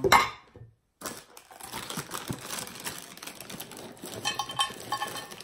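A cardboard box of vanilla wafers being picked up and handled, crinkling and rustling with many small light clicks.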